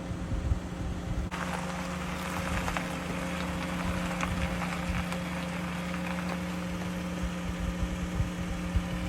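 Dodge camper van on the move: a steady engine and road hum. A broad hiss with scattered ticks cuts in about a second in and cuts off suddenly near the end.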